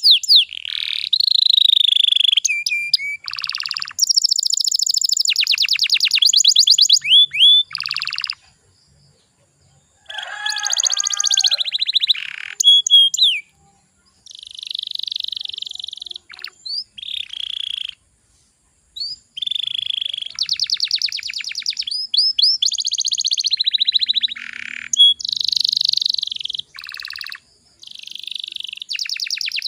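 Domestic canary singing: long rolls and fast trills of rapidly repeated notes with whistled glides, in phrases broken by short pauses.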